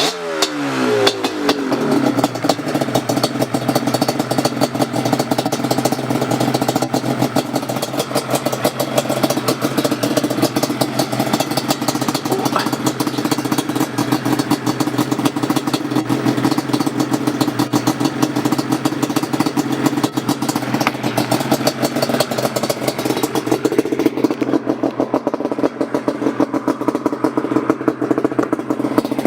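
An engine revs and drops back in the first couple of seconds, then idles steadily.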